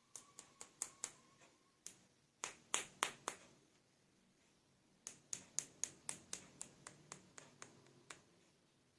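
Three bursts of quick, sharp clicks and taps, like small hard plastic toy pieces being clicked together or set down on a hard surface. The loudest cluster comes about three seconds in, and near the end a run of about four clicks a second slowly fades.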